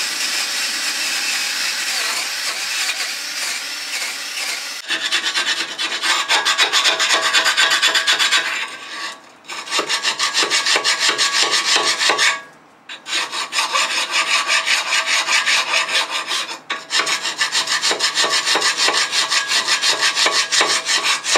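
Hand file scraping surface rust off the steel pad rails of a brake caliper carrier, in quick back-and-forth strokes at about three a second with three short breaks. For about the first five seconds the scraping is continuous rather than in strokes.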